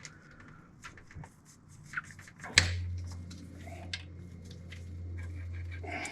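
Small clicks and taps of bolts and parts being handled at an engine's timing cover, with a sharp knock about two and a half seconds in, after which a steady low hum sets in.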